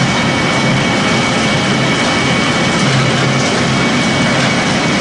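Pellet mill pressing straw and sawdust into pellets, running steadily and loudly, with a constant high whine over its hum.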